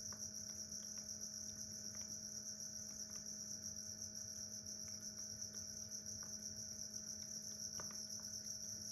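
Crickets trilling in a steady, unbroken chorus, with a faint low hum beneath.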